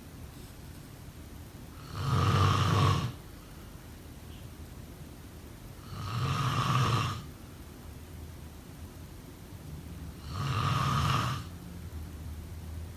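A sleeping person snoring: three loud snores, each about a second long and about four seconds apart, with quieter breathing sounds between them.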